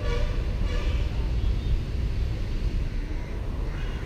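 Steady low rumble of traffic, with the end of a vehicle horn blast sounding right at the start.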